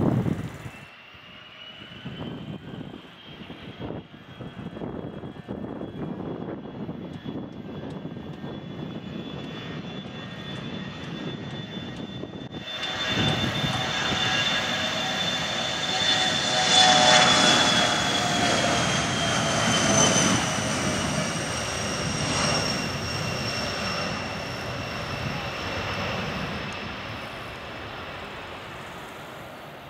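The twin rear-mounted General Electric CF34 turbofans of a Bombardier Challenger 604 business jet at take-off power during its take-off roll: a steady jet roar with a high whine. It grows much louder from about halfway, peaks, then the whine slides down in pitch as the jet passes and fades away near the end.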